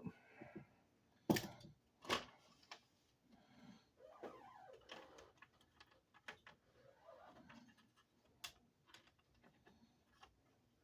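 Small hand-handling sounds while working on the fishfinder's open case: a few scattered light clicks and taps with faint rustling and scraping of wires and plastic parts in between.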